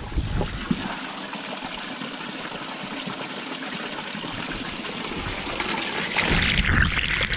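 Spring water pouring from the spouts of a stone fountain and splashing onto the grate below, a steady trickling and splashing. It grows louder and fuller near the end.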